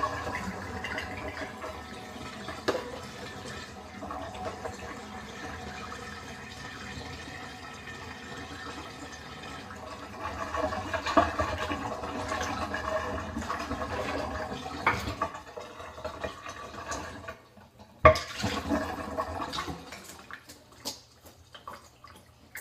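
Water running and pouring steadily into a container for about seventeen seconds. Then comes a sharp knock, the loudest sound, and a few brief clatters.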